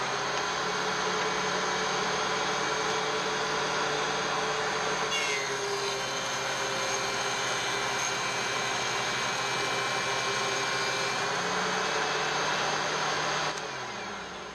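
DeWalt DW735 thickness planer with a Byrd Shelix spiral cutterhead running steadily while a board is fed through it to take a 1/16-inch pass. The tone shifts about five seconds in. Near the end the machine is switched off and its motor whine falls in pitch as it spins down.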